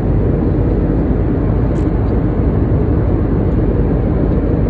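Airliner cabin noise: a steady low rumble with no break.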